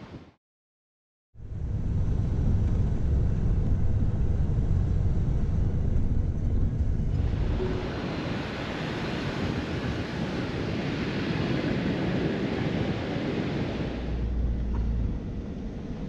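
Wind rumbling on the microphone over breaking ocean surf, after about a second of silence at the start. The hiss of the surf swells about seven seconds in and drops away near the end.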